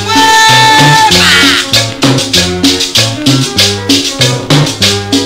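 Cumbia playing over a sound system: a repeating bass line under a steady shaker rhythm. A long held high note opens the passage, followed by a short wavering run of high notes.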